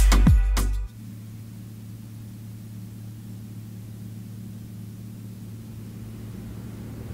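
Music with a beat cuts off about a second in, giving way to the steady low hum of the Archer Midnight eVTOL's electric rotors running on the ground before lift-off, growing slightly louder toward the end.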